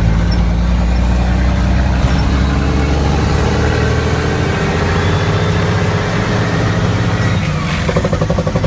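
Mack RD truck's diesel engine running steadily as the truck drives, with a rapid chatter near the end.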